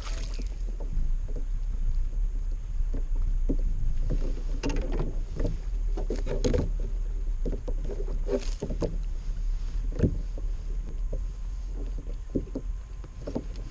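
Water lapping and slapping against the hull of an anchored plastic kayak, with a few sharp knocks, over a steady low wind rumble on the microphone.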